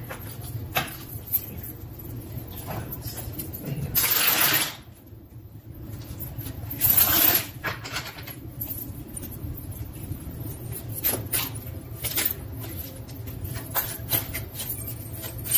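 Tarot cards being handled on a tabletop: light taps and slaps as cards are laid down, with two longer swishing bursts of shuffling about four and seven seconds in.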